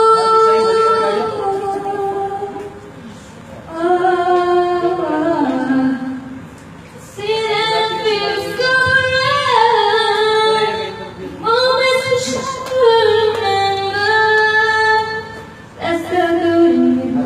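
A female voice singing with little or no accompaniment, in phrases of long held notes broken by short pauses.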